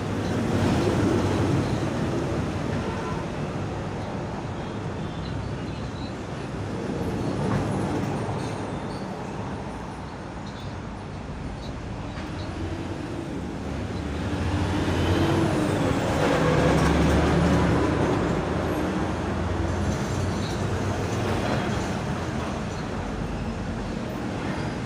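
Street traffic with heavy vehicles' engines running, swelling loudest about two-thirds of the way through as one passes close, with a brief high squeal around then.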